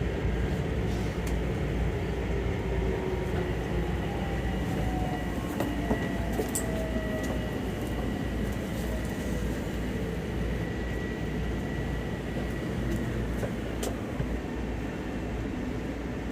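Passenger train running, heard from inside the car: a steady rumble of wheels on track, with a faint whine that slides in pitch for a few seconds and a few light clicks.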